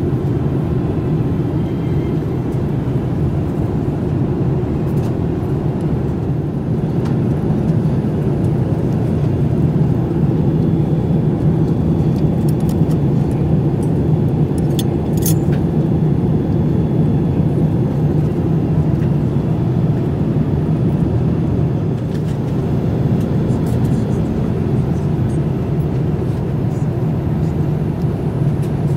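Steady cabin noise of a Boeing 787-8 airliner in flight, a low, even rush. A few light clinks come about halfway through as metal cutlery on the meal tray is handled.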